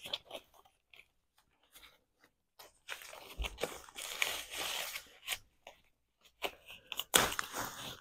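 Packaging wrap being torn and crumpled off a handbag strap as it is unwrapped: light scattered crackles at first, then two longer stretches of rustling and tearing.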